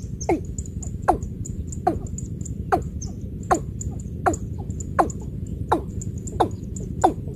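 Watercock calling: a regular series of short hollow notes, each falling in pitch, about one every three-quarters of a second, with faint high ticking behind them.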